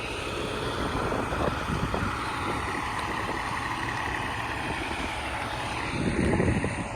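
A fire engine running, a steady heavy-vehicle engine noise that swells louder about six seconds in.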